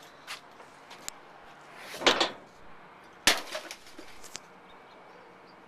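A few light clicks, a short rustling clatter about two seconds in, then a sharp knock a second later followed by a few smaller taps: handling noises, not the air horn.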